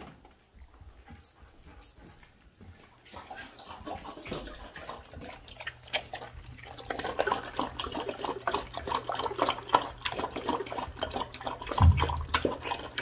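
A White Swiss Shepherd puppy lapping water from a stainless steel bowl: rapid wet laps starting a few seconds in and growing louder, with a single dull thump near the end.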